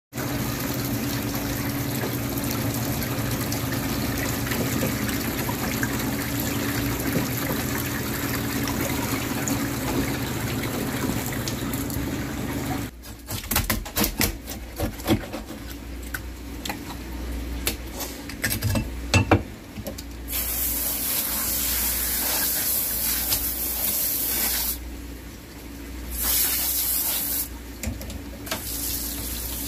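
Aerated live-fish tank bubbling and churning steadily over a low pump hum. About thirteen seconds in it gives way to a scaling tool scraping and clicking over a flounder on a plastic cutting board, and then to water rushing from a tap in two stretches.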